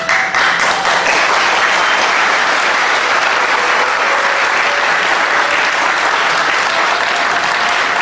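An audience applauding, many hands clapping loudly and steadily.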